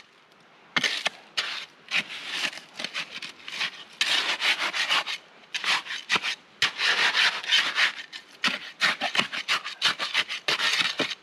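A hand trowel scraping and pushing gritty concrete mix into the gaps under stacked creek rocks: a run of uneven rasping strokes that starts about a second in.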